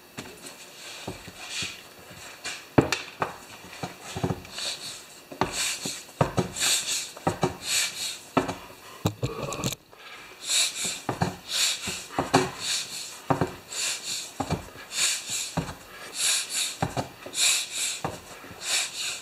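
Repeated short hisses of air puffing out of a small tractor tire's inner tube as the tire is squeezed and turned with the valve core out, letting the tube settle inside the tire, with a few knocks from the wheel being handled.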